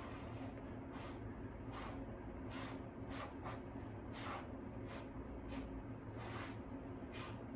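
Short puffs of breath blown through a plastic drinking straw onto wet acrylic pour paint, about nine in a row at uneven spacing, over a steady low hum.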